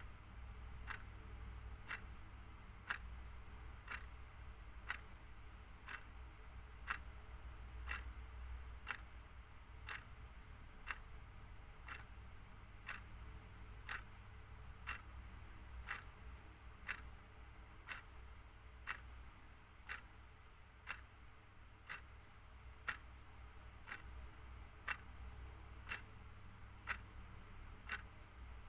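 Clock ticking steadily at about one tick a second, every other tick slightly louder in a tick-tock pattern, over a faint low hum.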